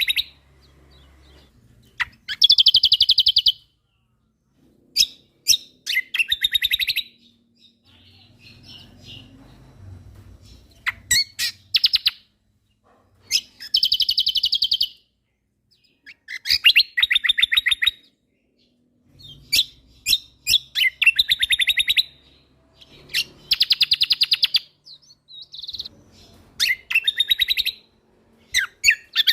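Kecial kombok (cucak kombo) singing in its full, lively 'tembakan' style: rapid trilled phrases of a second or two, repeated every few seconds, with short sharp chip notes between them.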